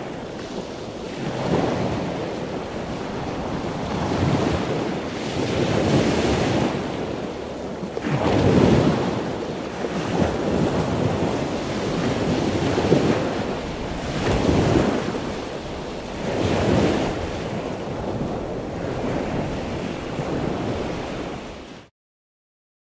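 Sea waves surging and washing in, one swell every two seconds or so, with wind noise over it; it cuts off suddenly near the end.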